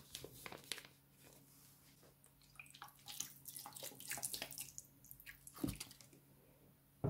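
Faint, scattered wet clicks and small pops from glossy slime with water beads resting on it. At the start the plastic piping bag gives a few crinkles, and a single soft thump comes near the end.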